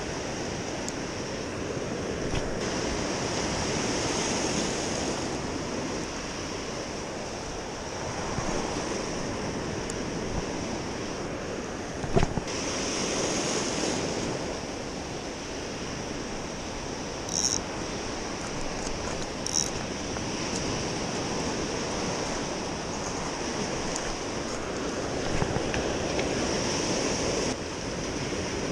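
Small sea waves washing against the shore, a steady surf that swells and eases every few seconds. A sharp knock sounds about twelve seconds in, and two brief high clicks follow a couple of seconds apart.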